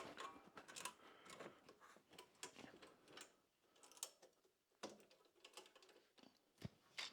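Faint, scattered clicks and small mechanical rattles of a bike trailer's wheel and fittings being handled and fitted.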